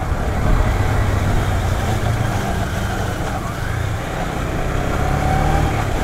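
Motorcycle engine running steadily under way, a low hum with an even rush of noise over it.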